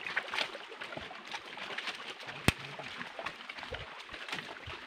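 Footsteps over the wet stones and shallow water of a rocky creek bed, with light splashing and scattered knocks of stone. One sharp click stands out about halfway through.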